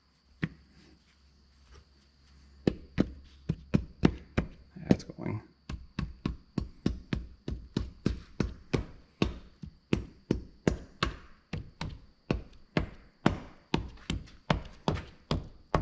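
Repeated sharp taps, about two to three a second, driving the end cap of an Oliver 1650 tractor's power-steering cylinder down into its bore past the new O-ring. The taps start about two and a half seconds in and keep an even pace throughout.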